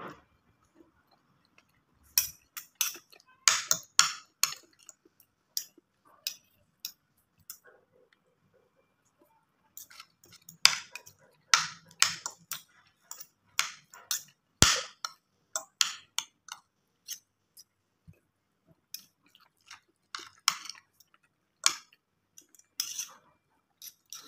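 Eating sounds: close chewing and mouth clicks, with a metal fork and spoon clinking and scraping on a plate as rice is scooped up, in irregular runs of short sharp clicks with a few brief pauses.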